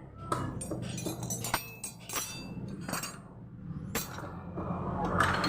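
Irregular sharp metal clinks and taps of tools and bolts on a Yamaha Vega ZR engine as its cylinder head bolts are loosened and taken out, over a steady low hum.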